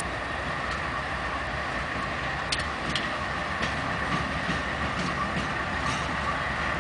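A Norfolk Southern GE Dash 9-40CW diesel locomotive rolling slowly past, its diesel engine running steadily. A few sharp clicks come at uneven intervals as the wheels cross rail joints.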